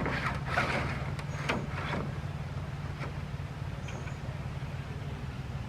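A steady low mechanical hum, like an engine idling, with a few short knocks and scrapes in the first two seconds.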